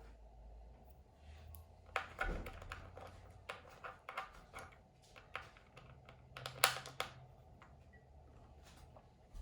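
Irregular clicks, taps and brief rustles of a mechanical keyboard and its packaging being handled during unboxing, with the loudest knocks about two seconds in and again near seven seconds.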